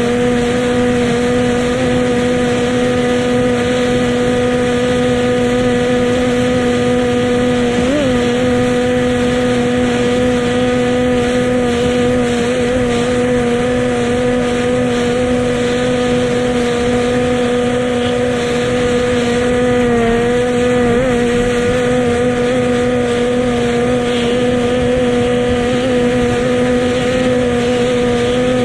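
Powerboat engine running flat out at a steady speed: a loud, constant drone that holds one pitch, wavering briefly about eight and twenty seconds in.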